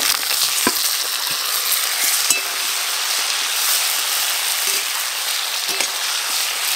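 Sliced eggplant hitting hot oil in a metal wok of frying potatoes, setting off a loud, steady sizzle from the moment it goes in. A metal spatula stirring the vegetables gives a few knocks and scrapes against the wok.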